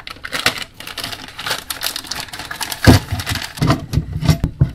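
Plastic electrical boxes, parts and their plastic bags being handled on a wooden workbench: rustling and crinkling with quick clicks, a heavier knock about three seconds in and several more knocks near the end.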